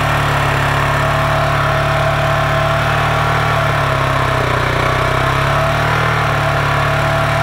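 Large single-cylinder supermoto motorcycle engine idling steadily, dipping slightly in speed about two-thirds of the way through. It carries a fine vibrating buzz, which the rider puts down to the added metal skid plate and bolt-on metalwork amplifying normal engine noise.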